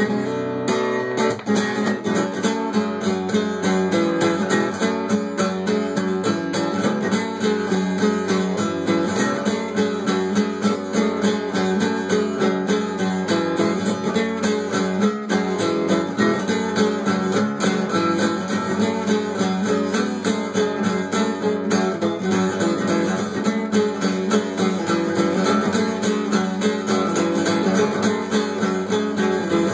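Acoustic guitar played in a steady, fast strumming rhythm of chords.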